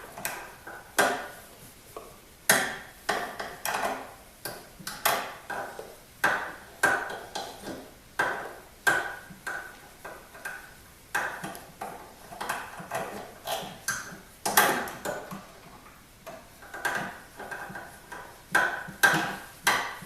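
Metal clicks and clinks of a folding Torx key working a screw out of a snowblower's sheet-metal cover. The clicks and taps come at uneven intervals, about one every second, each with a short ring.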